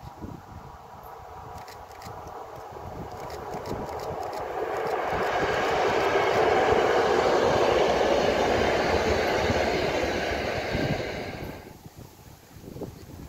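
A diesel locomotive hauling freight wagons passes along the track, its engine and wheel noise growing as it approaches, loudest around the middle, then cut off abruptly near the end.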